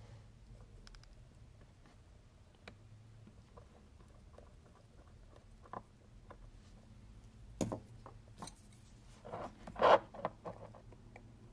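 Faint small clicks and scrapes of a fine steel tool working the keyless works of a vintage Seiko 62MAS automatic watch movement in its holder while the setting axle spring is taken out. A sharper click comes about eight seconds in, followed by a brief scraping rustle of handling near ten seconds.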